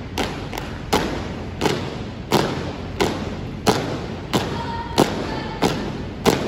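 A drill team's boots stomping in unison as they march in step on a concrete hangar floor, about one and a half stomps a second, each stomp echoing in the large hall.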